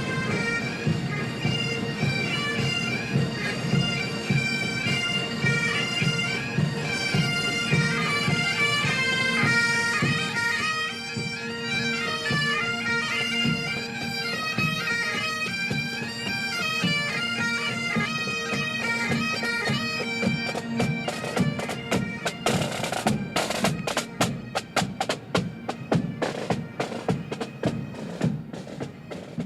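Marching pipe band: bagpipes play a melody over their steady drones, with drums beating beneath. About three-quarters of the way through the pipes stop and the drums play on alone.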